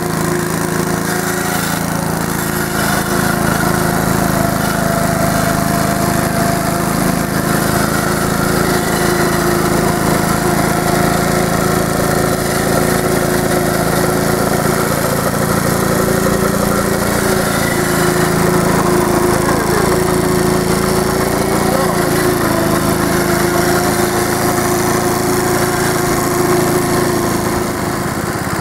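Small Clinton engine of a 1952 AirCaps Sit'n Cut riding lawnmower running steadily while the mower cuts grass, its pitch holding level.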